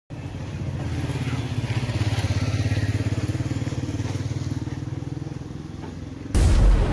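JCB backhoe loader's diesel engine running steadily. Near the end a sudden, louder rushing noise with a deep boom cuts in over it, the start of an intro sound effect.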